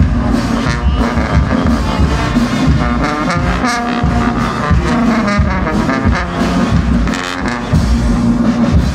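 Brass band of tubas, euphoniums and other brass horns playing together, loud and rhythmic, with a strong bass line.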